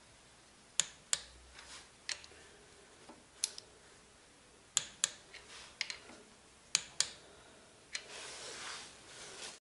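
Sharp clicks of a hand ratchet wrench on the oil filter cover bolts of a Zontes U1 125 engine, single clicks and pairs spaced about a second apart. It ends with a rustle of handling near the end.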